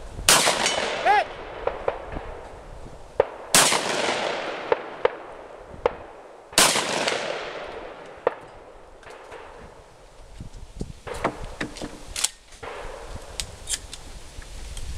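Gunshots on a 3-gun match stage: four loud shots spaced a few seconds apart, each trailing a long echo, with fainter sharp cracks in between.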